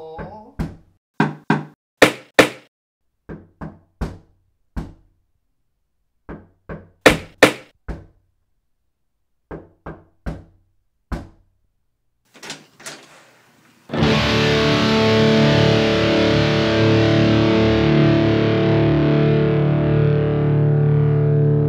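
Repeated knocking on a door: sharp raps in uneven clusters of two to four, the loudest pairs a couple of seconds and seven seconds in. About two-thirds of the way through, loud distorted electric guitar music cuts in abruptly and carries on.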